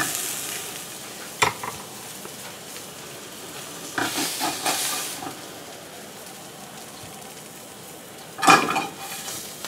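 Steady sizzling hiss from a hot frying pan and boiling pot on the stovetop. Over it come kitchen knocks and clatters as tilapia is moved to a plate: a sharp knock about a second and a half in, a few clatters around four to five seconds, and the loudest clatter near the end.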